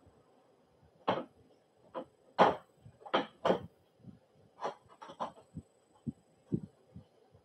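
Irregular knocks and clicks of bassinet frame parts and panels being handled and pushed into place, about a dozen short sharp sounds starting about a second in, the loudest about two and a half seconds in.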